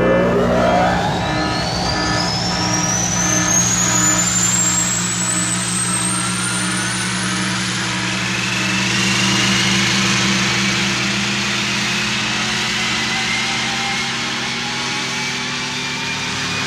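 Sci-fi spaceship engine sound effect powering up: a steady low drone with several whines rising slowly in pitch over it.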